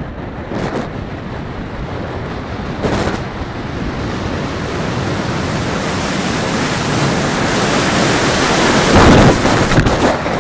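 Rushing wind noise on the microphone of a camera carried by a falcon in flight, a dense hiss that grows steadily louder and is loudest about nine seconds in.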